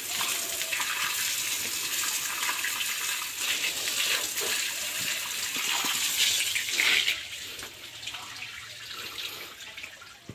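Water pouring and splashing onto a pigsty floor as the pen is washed out, a steady rushing hiss that drops away about seven seconds in.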